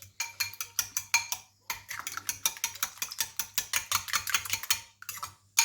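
Fork beating partly cooked eggs in a bowl, mixing the set edges into the runny middle; it clicks against the bowl in quick, regular strokes. There is a brief pause about a second and a half in, and a few separate knocks near the end.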